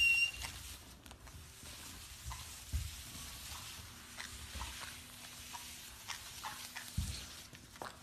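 Faint scattered light taps and scratches with two soft low thumps, one about three seconds in and one near the end, after a short high chirp at the very start.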